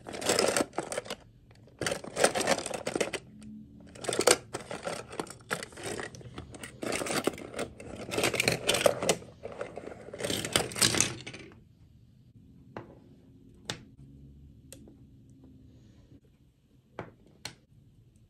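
Small plastic dolls and their rubbery dresses rattling and clattering in a cardboard box as a hand rummages through them and the box is tipped out onto a table, in dense bursts for about eleven seconds. After that come only a few separate light clicks of single dolls being handled and set down.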